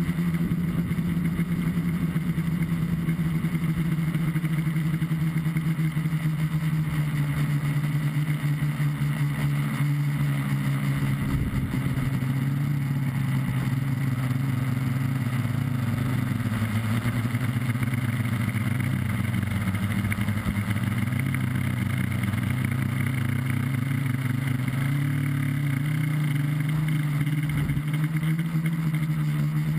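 Multirotor tricopter's three electric motors and propellers buzzing, heard from a camera mounted on the craft. The pitch dips about a third of the way through, wavers lower for a while, and rises again near the end as the throttle changes.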